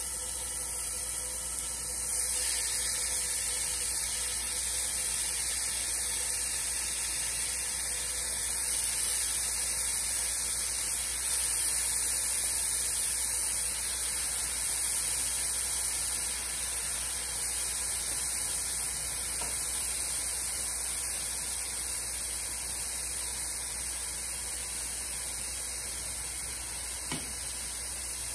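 Raw chicken tenders sizzling in hot oil in a frying pan: a steady hiss that gets louder about two seconds in, over a low steady hum.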